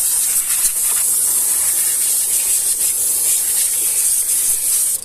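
Compressed-air blow gun blasting a steady hiss over a freshly washed engine, blowing the water off it. The air cuts off suddenly at the end.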